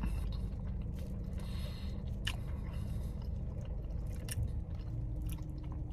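Faint clicks and scraping of a cardboard dessert box and its wrapper being handled as a slice of pie is slid out, a few separate ticks over a steady low hum in a car cabin.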